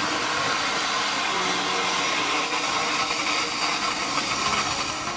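Steady hiss of escaping steam from GWR steam railmotor No. 93.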